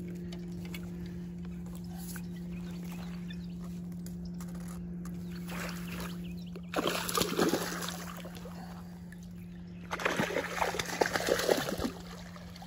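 A hooked bowfin (mudfish) thrashing and splashing in shallow water and weeds at the bank's edge as it is hauled in, in two bursts: one about seven seconds in and a longer one about ten seconds in.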